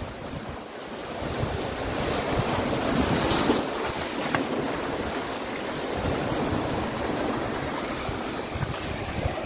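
Sea waves washing and breaking over shoreline rocks, with wind buffeting the microphone in a low, gusty rumble.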